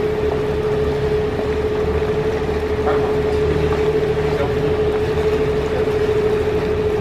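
Canal tour boat's engine running steadily underway: a low rumble with a constant hum.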